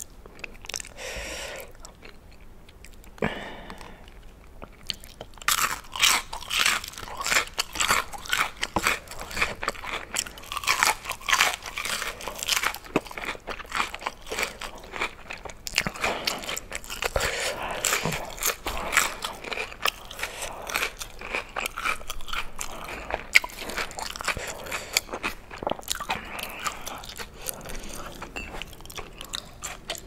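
Close-miked biting and chewing of crunchy fried food: dense, crackly crunches that start about five seconds in and keep going.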